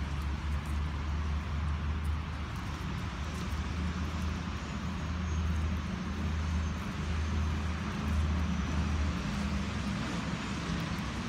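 Steady distant road traffic with a low rumble.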